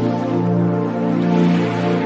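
Background music of steady held chords.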